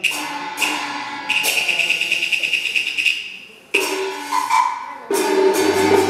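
Taiwanese opera percussion accompaniment: about five sharp metallic crashes, each left ringing for a second or more. About five seconds in, a steadier pitched instrumental line comes in under them.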